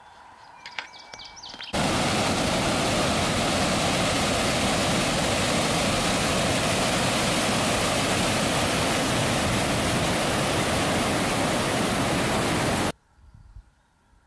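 Waterfall rushing: a steady, loud wash of falling water that starts suddenly a couple of seconds in and stops suddenly about a second before the end. A few bird chirps come just before it.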